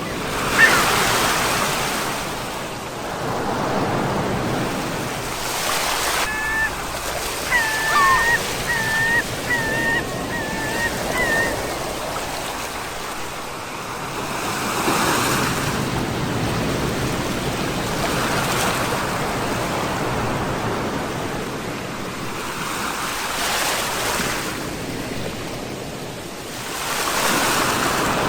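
Sea waves breaking and washing in, the rush of surf swelling and ebbing every few seconds. About a quarter of the way in comes a short run of high chirps, about six of them.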